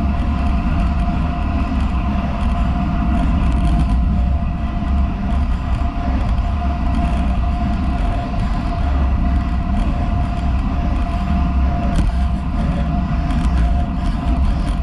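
Road bike on Roval Rapide CLX 50 carbon wheels rolling at about 35 km/h: steady wind buffeting on a handlebar-mounted action camera's microphone and tyre noise on wet asphalt, with a thin steady whine running through it.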